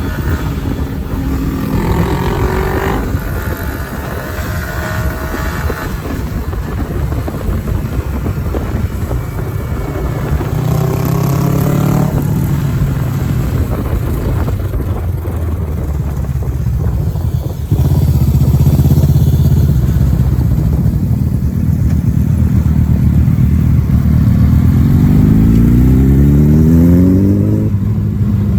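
Motorcycle engine under way, revving up in pitch several times and dropping back between rises, as on gear changes, over a steady rush of riding noise. It gets louder about two-thirds of the way through, with a last long climb near the end that falls off sharply.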